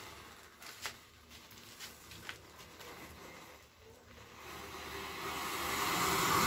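Safety matches flaring one after another, with a few short fizzing crackles. From about four seconds in, a rushing hiss grows steadily louder as the heated metal can on the toy truck vents and bursts into a jet of flame.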